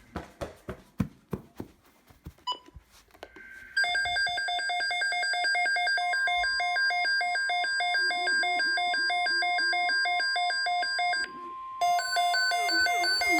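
A few quick knocks, then from about four seconds in a Midland WR-100 weather radio's alert alarm goes off for a tornado watch: a loud, rapid electronic beeping with a faint steady tone under it. The beeping breaks off briefly near the end and starts again.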